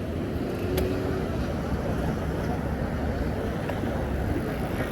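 City street ambience: a steady low rumble of passing traffic, with a single sharp click about a second in.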